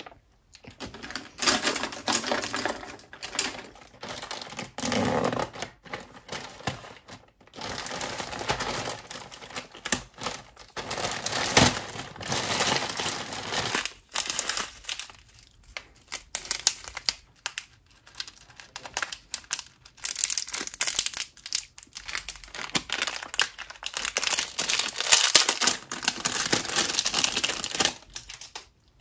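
Plastic packaging crinkling and rustling in the hands: a poly mailer bag and small zip-lock bags being opened and handled, in irregular bursts with short pauses.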